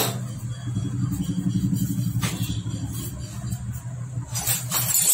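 A motor running at a steady low hum, with a few short clatters near the end.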